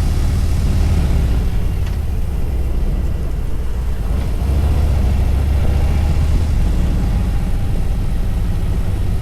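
Harley-Davidson motorcycle's V-twin engine running steadily while riding, its sound strongest in the deep bass. There is a brief click about two seconds in.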